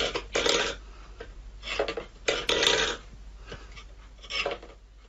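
A cat's paw scraping and rattling a stainless steel food bowl across a wooden floor, in several short scrapes.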